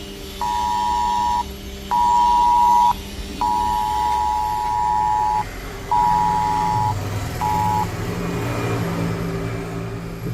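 Mobile phone emergency alert tone from a government test broadcast: a loud, steady two-note tone sounding in blasts of one to two seconds with half-second gaps, cutting off about 8 seconds in. A low steady hum runs underneath throughout.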